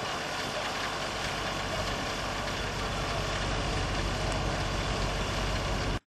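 A Boeing 737-800's two CFM56-7B turbofan engines at takeoff thrust as the airliner climbs away after liftoff: a steady rushing noise with a deep rumble that grows a little louder, then cuts off suddenly about six seconds in.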